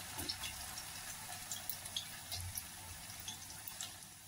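Taro (arbi) strips deep-frying in hot oil in a kadhai: a faint, steady sizzle with scattered small pops.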